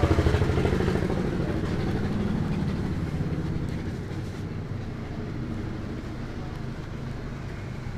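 A motor engine running with a low, pulsing drone, loudest at first and fading away over the first few seconds.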